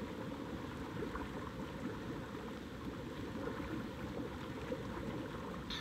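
Hot tub jets churning the water: a steady, low bubbling rush.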